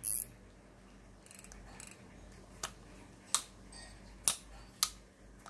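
Sharp single clicks from a Daiwa 4000-size spinning fishing reel being handled: about five irregularly spaced clicks, with a faint rustle between them.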